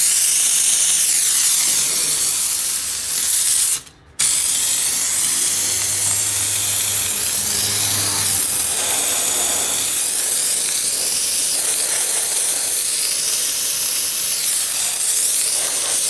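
Iris Ohyama canister steam cleaner's hand nozzle blowing a jet of steam against tiles: a loud, steady hiss that stops briefly about four seconds in, then resumes.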